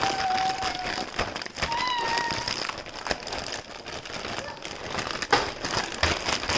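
Plastic Ziploc bag crinkling and crackling irregularly as the short ribs and thick marinade inside are mixed by hand. Two brief steady pitched tones sound within the first two and a half seconds.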